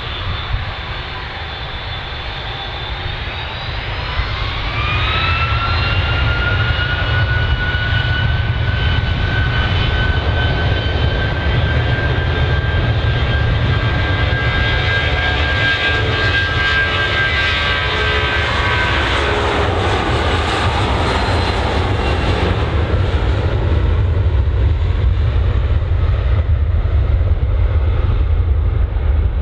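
Jet airliner's engines spooling up with a rising whine about four seconds in, holding a steady high whine over a heavy rumble, then the whine falling away about twenty seconds in while the rumble goes on.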